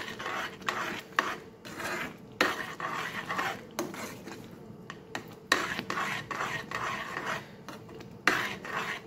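A metal spoon stirring and scraping a thick milk-and-paneer mixture in a metal pan, with repeated scrapes and clinks against the pan's sides and bottom.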